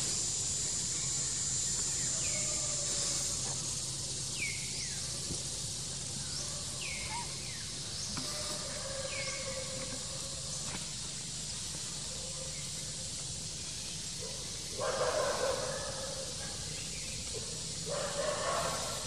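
Outdoor woodland ambience: a steady high insect hiss, strongest in the first few seconds, and a bird repeating a short falling call about once every second or so. Two louder noisy bursts, each lasting about a second, come near the end.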